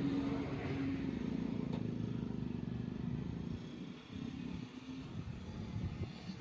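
An engine or motor running with a steady low hum that drops away about four seconds in.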